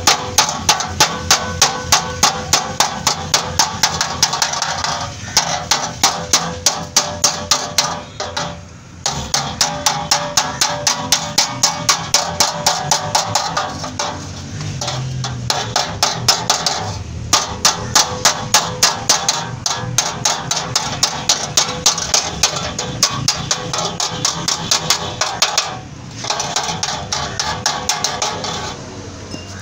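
Hammer striking a steel drift rod held against a car's crumpled front bumper reinforcement beam: a quick, steady run of sharp metal blows at about four a second, with a short pause about nine seconds in and another near the end. This is the beam being straightened out by hand without heat or repainting.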